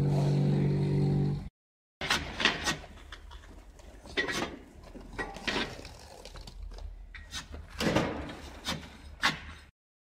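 A steady machine hum that cuts off abruptly. After a short break come irregular knocks and scrapes of metal tools and refractory ramming mass being worked around the steel former of an induction furnace lining.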